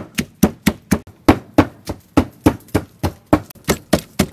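Wooden pestle pounding red chilies and garlic in a wooden mortar: steady, even thuds at about three to four strokes a second.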